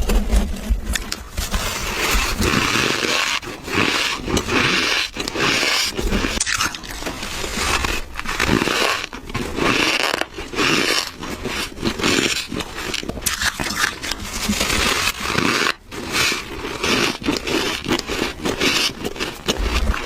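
Squeaky ice being bitten and crunched close to the mouth: a fast, irregular run of bites, one after another with short gaps.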